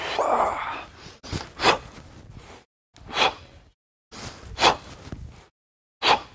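A man's short, sharp breaths, about one every second and a half, in time with his swings of a steel mace.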